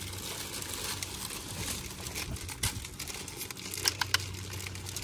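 Crinkling and rustling of handled material, with scattered small clicks and two sharper clicks near the end, over a steady low hum.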